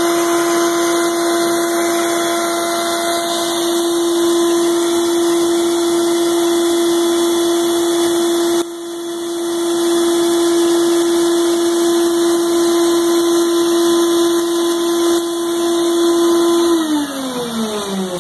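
Shop vac running with a steady whine, sucking drilling chips out of a freshly drilled bolt hole in an aluminum cylinder head through a narrow reducer nozzle. Near the end it is switched off and the whine falls in pitch as the motor spins down.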